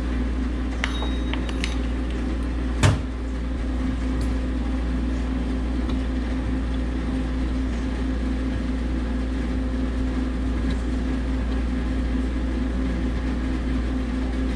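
Steady hum of running machinery with a constant low tone, and one sharp click about three seconds in.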